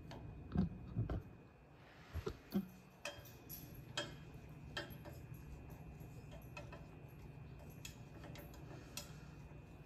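Light metallic clicks and taps, scattered every half second to a second, as the wires holding the knife scales in a stainless steel dye pot knock against the pot. A few duller knocks come in the first second or so, over a steady low hum.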